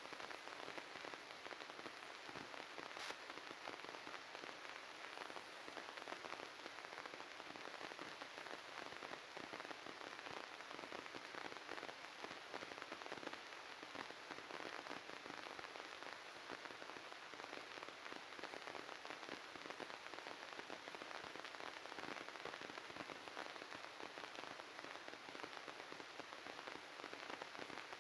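Continuous fine crackling static, a dense hiss of tiny clicks with no low end: a glitched, corrupted audio track.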